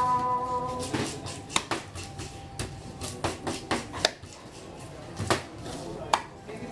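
A large curved knife chopping baam fish fillets on a round wooden chopping block: irregular sharp knocks of the blade striking the wood, the loudest about four seconds in.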